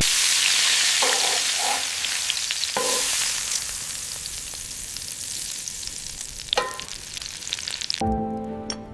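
Food frying in a hot pan: a loud sizzle that starts at once and slowly dies down, with a few light clinks of utensils on the pan. Music comes in near the end.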